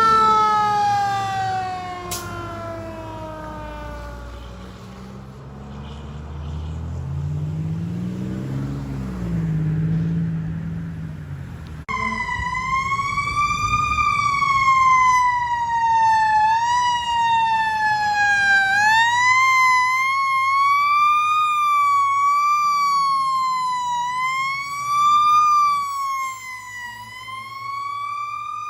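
A fire truck's Federal Q mechanical siren winding down, its pitch falling away over a few seconds, followed by a low rumble that swells and fades. About twelve seconds in, a siren starts abruptly and wails up and down in pitch every two to three seconds, with a few sudden upward jumps.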